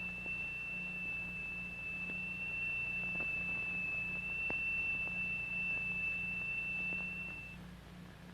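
Steady high-pitched pure tone from a triangular steel plate driven by an attached crystal at a higher note. The tone cuts off about seven and a half seconds in. A faint low hum and a few soft clicks run underneath.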